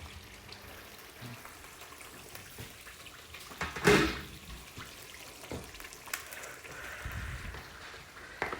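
Kitchen cooking sounds: a faint steady watery hiss from the cooking pot, with one loud clatter about four seconds in and a few lighter knocks later.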